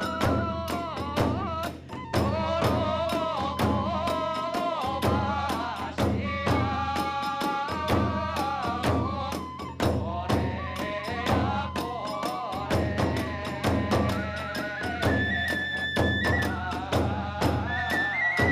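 Hiroshima kagura hayashi: a bamboo transverse flute plays a held, bending melody over steady rapid beats of the big drum and the clash of small hand cymbals.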